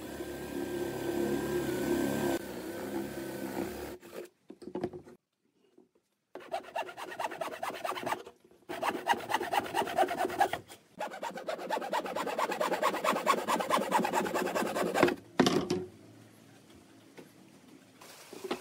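An electric drill boring through a pine block with a spade bit, running steadily for about four seconds. After a short pause, a hand saw cuts through the wood in quick back-and-forth strokes, in three runs broken by brief pauses.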